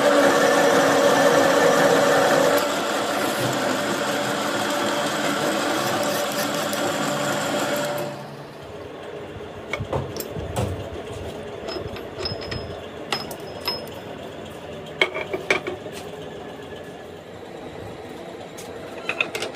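A workshop machine's motor running steadily, stopping suddenly about eight seconds in, followed by scattered light metallic clicks and knocks.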